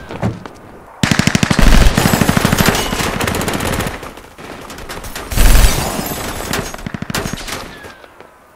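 Automatic gunfire in two long rapid bursts, the first starting about a second in and the second about halfway through, each opening with a heavy boom, then dying away near the end.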